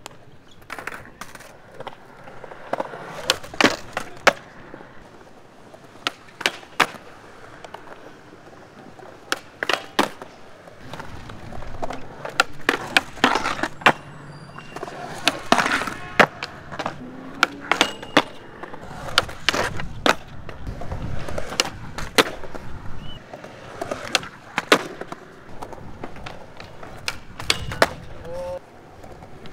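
Skateboard wheels rolling on smooth concrete, cut by repeated sharp clacks of tails popping and boards landing, with the board grinding along a concrete ledge in places.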